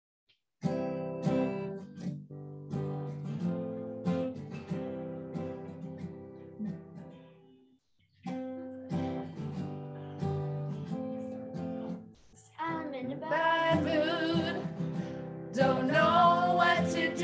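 Acoustic guitar strumming chords as a song's introduction, with a short break about eight seconds in. Near the end a voice starts singing over the guitar.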